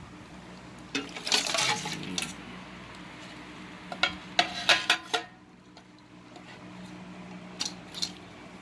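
Utensils and dishes clattering in three short bursts of knocks and clinks, as seafood is handled and seasoned for marinating.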